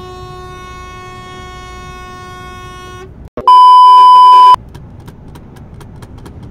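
A vehicle horn held steadily for about three seconds as another truck cuts in. A moment later comes a loud, steady censor bleep lasting about a second, masking a word.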